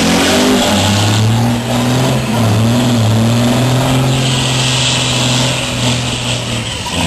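Race trucks' diesel engines revving hard at the drag-race start line, held at a steady high pitch with a brief dip about two seconds in. From about four seconds in, a hissing tyre noise joins as one truck does a burnout. The engine note drops away near the end.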